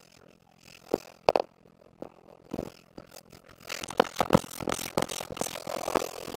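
A few faint knocks, then from about three and a half seconds in a steady run of close scraping and rustling against cardboard, as a cat inside a box pushes against the phone at the opening.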